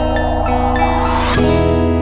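Background music: soft plucked notes over a steady bass, with a swelling whoosh that peaks about a second and a half in as the chord changes.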